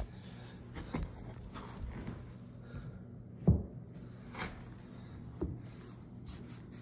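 Laminate click-flooring plank being worked into its end joint by hand: a handful of scattered knocks and clicks of the plank against the subfloor and the neighbouring plank, the loudest about three and a half seconds in, over a faint steady hum.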